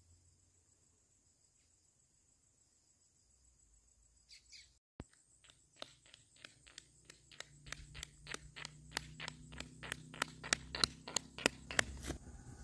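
Footsteps in sandals on a concrete road, about three steps a second, starting about five seconds in and growing louder. Under them the low hum of a motorbike engine rises over the last few seconds.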